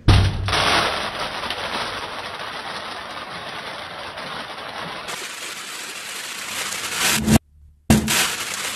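A balloon filled with small beads popping, followed by a long shower of beads falling and bouncing on a hard surface. Near the end a second bead-filled balloon pops.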